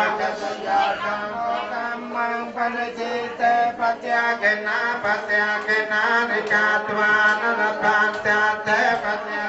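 A chanted blessing, a voice reciting in a steady sing-song melody with a low steady tone held underneath.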